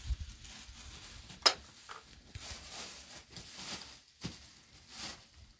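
A plastic bag being handled, rustling on and off, with a single sharp click about one and a half seconds in and a couple of soft knocks near the end.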